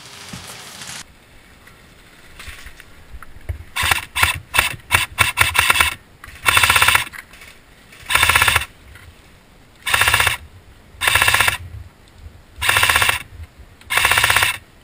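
Airsoft rifle firing close by: a quick string of short shots and brief bursts from about four seconds in, then six full-auto bursts of about half a second each, spaced a second or so apart.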